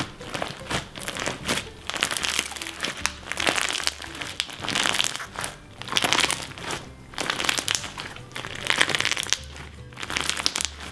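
Clear slime packed with cut plastic drinking-straw pieces crackling and crunching as hands squeeze and knead it, in repeated bursts with each squeeze. Soft background music plays underneath.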